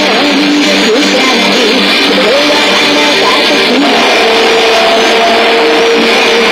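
Sengoku KIZUNA II pachinko machine playing loud guitar-driven music and sound effects.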